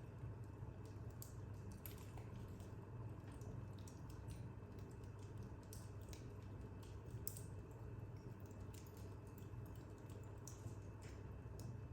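Wood fire in a fireplace crackling faintly, with small irregular pops and snaps over a low steady hum.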